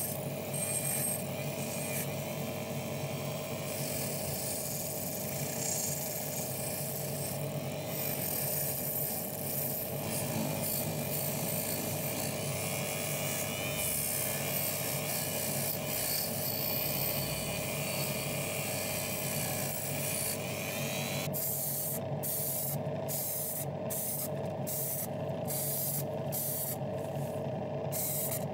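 Small hand-held rotary tool running with a wire-brush wheel, scrubbing the bare diecast metal of a Matchbox part to clean off what is left after paint stripping. About 21 seconds in the sound changes to short bursts of hiss about twice a second, with a steady hum underneath.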